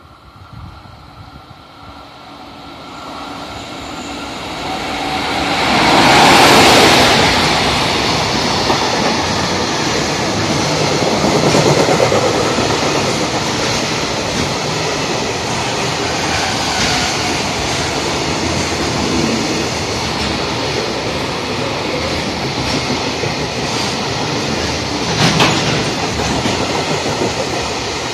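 EF65 electric locomotive hauling a long container freight train past at speed: the noise builds as it approaches and is loudest as the locomotive goes by about six seconds in, then the container wagons roll past steadily, with a short sharp burst near the end.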